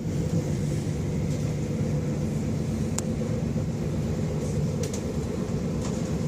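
Passenger train running at speed, heard from inside the carriage: a steady rumble with a low hum, and a single sharp click about three seconds in.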